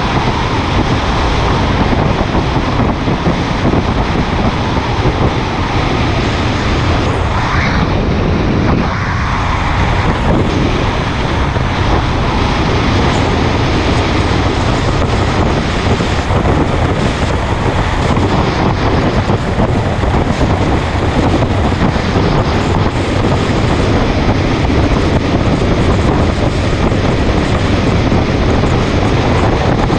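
Steady wind rushing over the microphone of a motorcycle at road speed, mixed with its engine and road noise.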